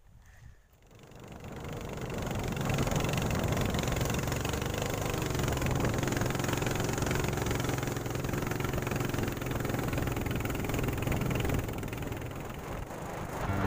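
A small wooden fishing boat's engine running steadily as the boat travels along the river, fading up over the first couple of seconds.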